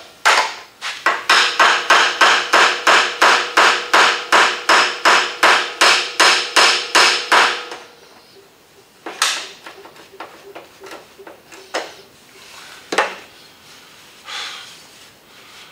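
Hammer lightly tapping upward on vice grips clamped to a car door hinge pin, a fast even run of about three metallic, ringing strikes a second that drives the pin up out of the hinge. The tapping stops about eight seconds in, leaving a few scattered single knocks.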